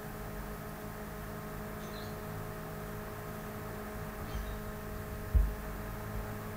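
Steady low electrical hum with background hiss from the recording microphone, and a single short low thump about five seconds in.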